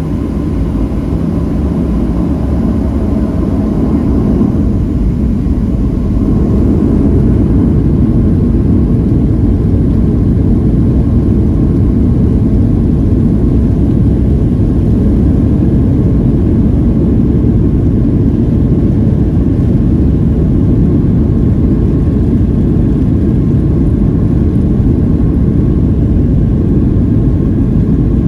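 Boeing 737-700's CFM56-7B turbofans heard from inside the cabin, spooling up to takeoff thrust in the first several seconds, then a steady loud rumble as the jet accelerates down the runway on its takeoff roll.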